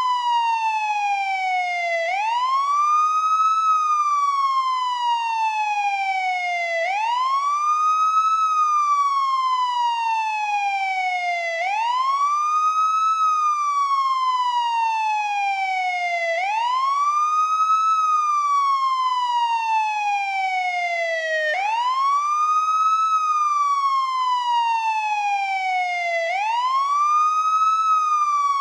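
American police siren sounding its wail: a single tone sweeps quickly up in pitch, then falls slowly back down, over and over about every five seconds.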